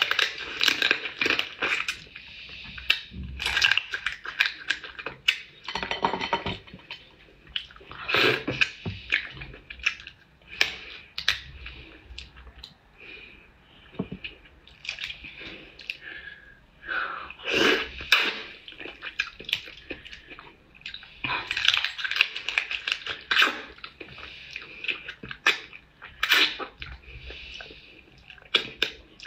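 Close-up eating of crab: bites into the shell, sucking and chewing come in irregular bursts with short pauses between them.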